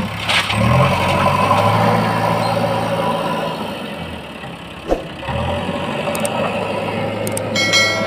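JCB backhoe loader's diesel engine working close by. It revs up about half a second in, drops back toward idle around three to four seconds in, and revs again as the machine reverses away. A single sharp knock comes at about five seconds.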